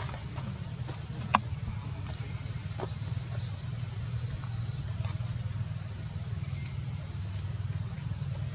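Outdoor ambience: a steady low rumble with birds chirping high and thin, mostly in the middle, and one sharp click about a second and a half in.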